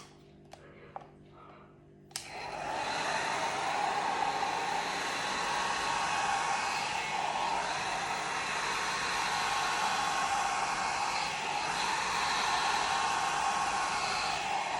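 Hair dryer switched on with a click about two seconds in, then running steadily with a loud, even rush of blown air.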